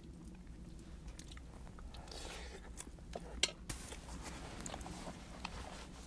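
A man chewing a mouthful of crispy bacon and fried eggs, with scattered light clicks.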